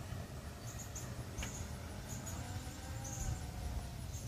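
Outdoor ambience: wind rumbling on the microphone, with short high chirps repeating every half second or so. A single sharp click comes about a second and a half in.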